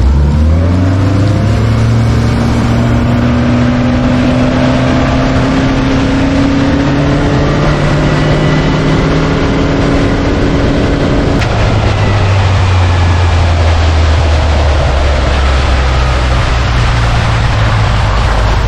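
Bass boat's outboard motor running at speed, its pitch rising over the first couple of seconds as it speeds up and then holding steady, shifting slightly lower about two-thirds through. A loud rush of wind and water runs under it.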